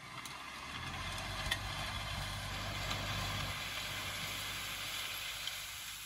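Massey Ferguson 3710 tractor engine running under load as it pulls a disc harrow through dry soil, with a dense hiss of the discs cutting and throwing the earth over a low engine drone. The sound swells at the start and fades just after the end.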